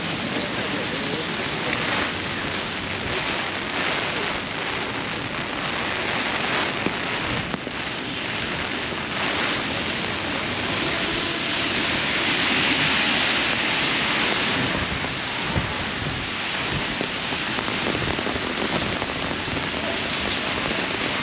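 Heavy rain falling on an umbrella overhead and on wet pavement: a steady hiss of rain that swells a little about midway through.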